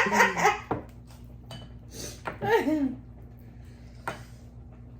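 A short laugh at the start, then quieter eating sounds: a few light clicks of a spoon against dishes and a couple of short breathy sniffs, over a faint steady hum.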